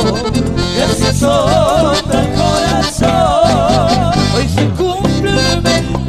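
Live cumbia band music: a lead melody with a wavering vibrato over bass and a steady beat.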